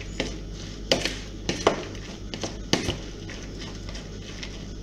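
Salted grated zucchini being stirred in a bowl, with a utensil knocking against the bowl several times at irregular intervals over a low steady hum.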